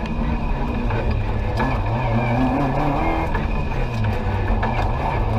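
Rally car engine heard from inside the cabin, its note rising and falling as the car is driven hard through a tight chicane of cones and barriers.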